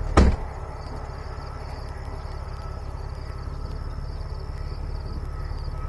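Wind buffeting the microphone in a steady low rumble, with a faint, steady high chirring of insects. A loud thump comes just after the start.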